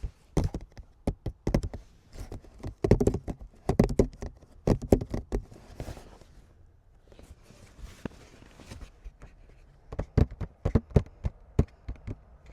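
Close-miked ASMR handling of cards and their packaging being opened: clusters of sharp taps and clicks, with a softer rustling stretch about halfway through.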